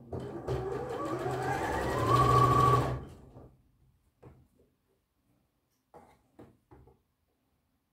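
Bernina B 38 sewing machine stitching, its motor speeding up to a steady high whine for about two and a half seconds and then stopping. After that come a few short soft noises as the fabric is handled.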